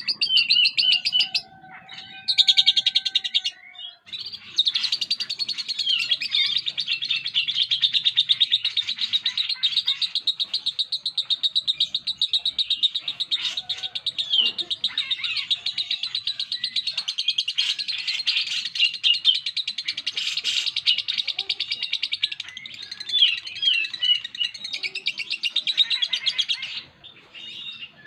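Lovebird singing its long 'ngekek' chatter: a rapid, unbroken string of high chirping notes. After two short bursts at the start, it runs on for about twenty seconds without a pause.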